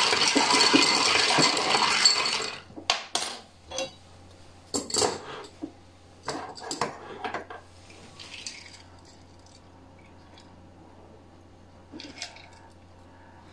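Ice cubes rattling and clinking in a glass mixing glass as a metal bar spoon stirs a dry martini to chill it. The stirring stops about two and a half seconds in, followed by a handful of separate clinks of metal on glass as the spoon is put down and a strainer is fitted over the glass.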